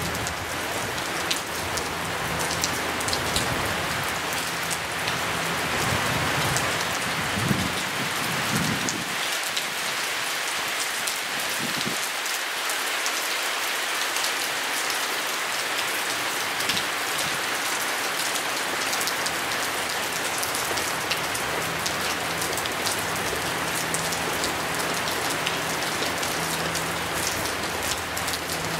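Steady rain falling on grass and a wet path: an even hiss dotted with many small drop taps, holding at one level throughout.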